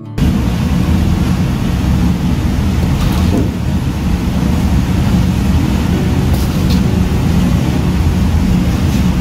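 Loud, steady low rumble of a restaurant kitchen running. A few faint clinks come about three seconds in and again near six and a half seconds, fitting a metal ladle touching a stainless-steel plate as sauce is poured.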